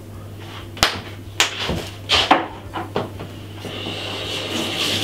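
A quick run of sharp knocks and clicks as a plastic seasoning shaker is shaken, tapped and set down, followed by a soft hiss near the end.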